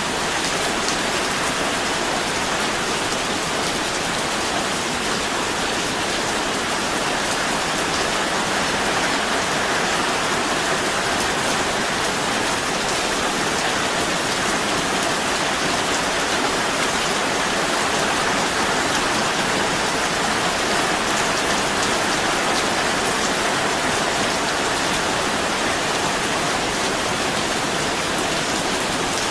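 Steady, even rain falling, a dense hiss of many small drops without let-up.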